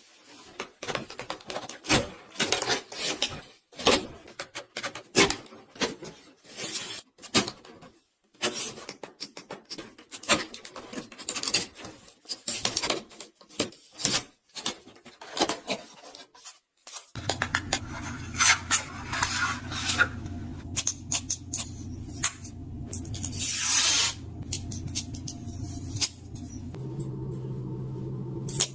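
Unboxing and handling noises: a dense run of small clicks, taps and rubbing of packaging and objects. About two-thirds of the way through the sound changes abruptly, and a steady low hum sits under more clicks and rasping scrapes.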